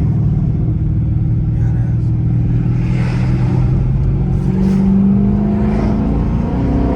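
Chrysler 300S's 5.7-litre Hemi V8 heard from inside the car while driving: a steady low drone, then rising in pitch about four and a half seconds in as the car accelerates.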